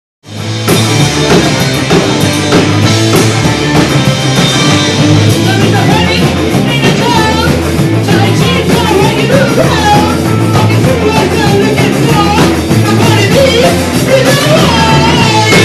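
Loud, fast punk rock band with drum kit and distorted guitars and a shouted vocal, starting suddenly after a brief silence.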